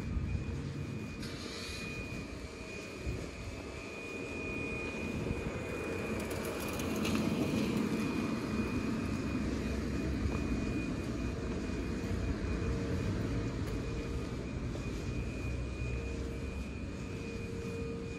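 Steady low engine rumble of motor traffic, swelling about seven to nine seconds in.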